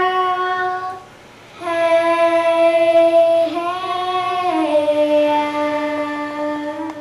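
Two young girls singing together without accompaniment, holding long notes. One note ends about a second in, and after a short break a long held note steps down in pitch twice before ending near the end.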